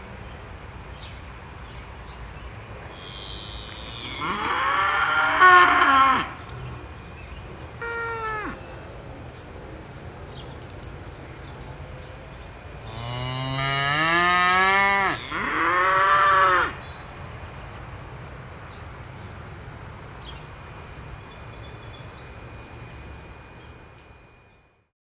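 Belted Galloway cattle mooing: one long moo about four seconds in, a short one around eight seconds, then two long moos back to back later on, the first rising in pitch.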